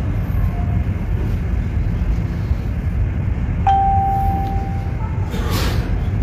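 Steady low outdoor rumble, with a single held tone of about a second starting a little past halfway through.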